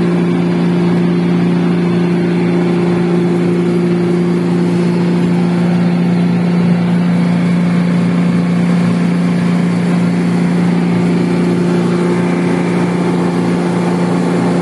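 Reefer container refrigeration unit running: a steady electric-motor hum from its compressor and fans, with a strong low tone and its octave and no change in pitch or level.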